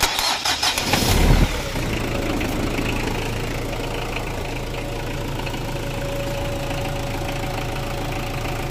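Mitsubishi 4M40 four-cylinder diesel engine cranked by its starter and catching after about a second and a half, then settling into a steady idle. This is its first start after a full overhaul.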